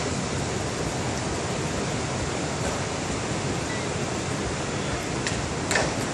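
Ocean surf breaking on the beach, a steady, even rushing wash of waves, with a short click or knock near the end.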